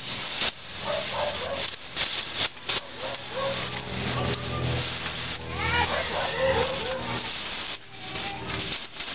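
Gas welding torch hissing steadily as a filler rod is melted into sheet steel, with irregular crackles and sputtering pops from the weld puddle.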